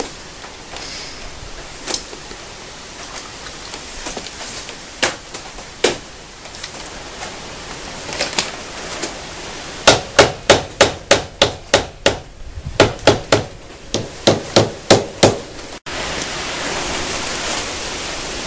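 Rubber mallet tapping on the engine side cover of a Honda ANF125 Innova to break the stuck cover free, since it is pretty tight. A few scattered taps, then from about ten seconds in a quick run of taps, about two a second.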